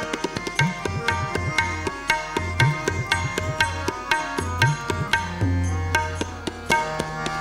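Instrumental passage of tabla playing a quick rhythm over held harmonium chords. The low bass-drum strokes now and then slide up in pitch.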